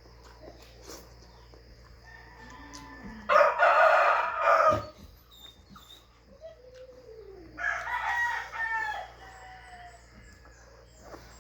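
Rooster crowing twice: a loud crow about three seconds in and a quieter one near eight seconds that drops in pitch at its end.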